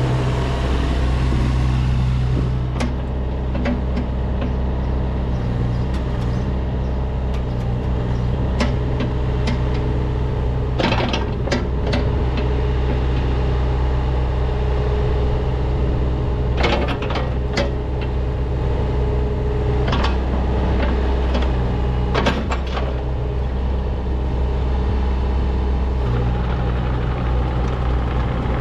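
Cat 303E CR mini excavator's diesel engine running steadily, with a few sharp knocks from the machine about 11, 17 and 22 seconds in.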